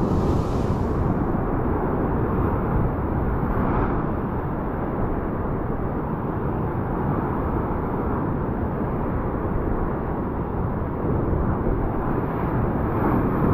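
Ocean surf breaking and washing over a rock ledge, a steady rushing, with wind rumbling on the microphone.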